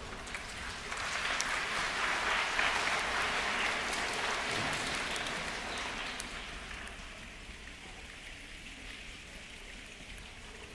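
A hall full of people making a rainstorm with their hands and bodies: a dense patter with sharp clicks that swells over the first few seconds, then dies away to a soft rustle as the storm winds down.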